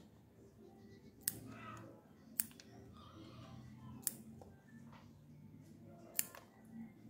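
Small pruning scissors snipping off shoots of a Portulacaria afra (elephant bush) bonsai: four sharp clicks, each a second or two after the last.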